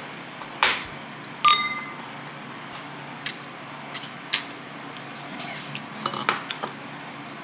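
Two cocktail glasses, a stemmed wine glass and a glass tumbler, clinking together in a toast, with one sharp chime that rings briefly about a second and a half in. Small taps follow as they drink, and a few knocks near six seconds in as the glasses are set back down on the countertop.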